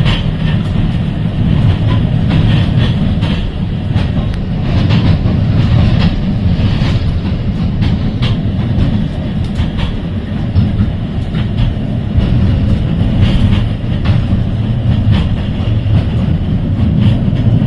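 Heritage electric tram running along the line, a steady low rumble of wheels on rail with scattered clicks and knocks over the track, heard from inside the car.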